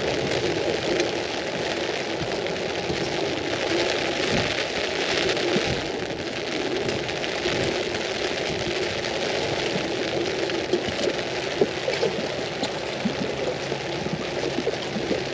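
Rain falling on an umbrella overhead: a steady hiss dotted with many small drop ticks, with a few louder drops near the end.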